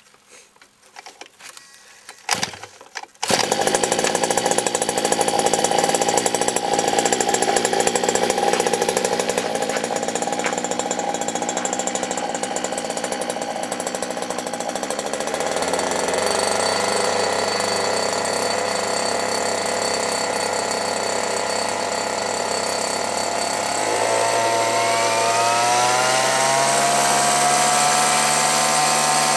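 Zenoah 23cc two-stroke petrol engine of an RC helicopter catching suddenly about three seconds in and running steadily. Near the end its revs climb, as the throttle is opened.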